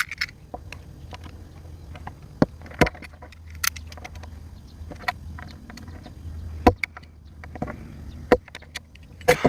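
Scattered sharp clicks and taps at irregular intervals, from a phone charging cable and its plug being taken apart by hand, over a steady low hum.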